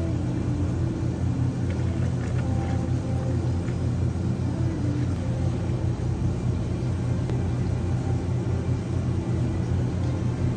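Steady low mechanical hum from running cafe equipment, with a few faint light clicks.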